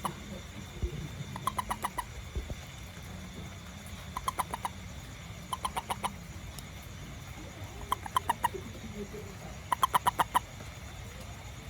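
Frog or toad calls: short pulsed trills, each a quick run of about ten clicky notes lasting half a second, repeating every two seconds or so.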